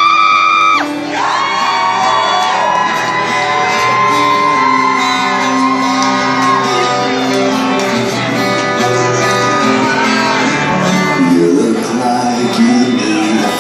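Music: a song passage of long held notes, some sliding in pitch, over a steady accompaniment.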